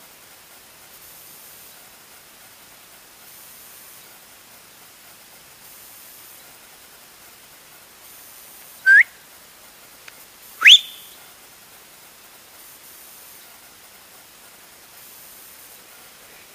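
Two short, sharp whistles rising in pitch, about two seconds apart, the second sweeping higher, over a steady faint hiss. A hunter is whistling at a red deer hind to make it stop for the shot.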